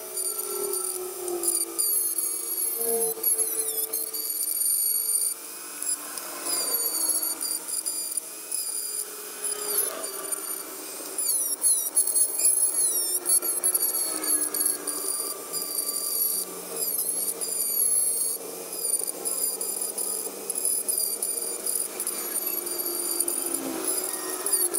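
A small power tool working iron parts, giving high squealing tones that waver and bend in pitch as the load changes.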